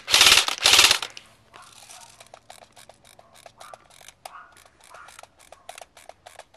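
KWA SR10 electric airsoft rifle firing on full auto: two short bursts, the loudest sound, ending about a second in. Then quieter, evenly spaced clicking, about five clicks a second, of a high-capacity magazine's wind-up wheel being ratcheted to feed BBs.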